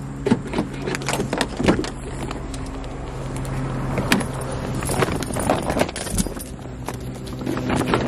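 Keys and a tassel keychain jangling on a car key fob, with scattered clicks and knocks as a car door is opened and fabric shopping bags are handled, over a steady low hum.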